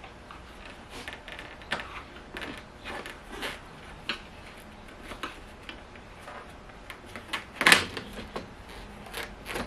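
Metal door sill trim strip being worked loose by hand and with a tool: scattered clicks, scrapes and light knocks, with one louder scraping clatter late on.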